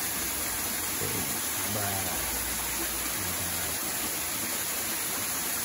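Steady rush of water from a small stream running over rocks, with a faint voice speaking briefly twice in the background.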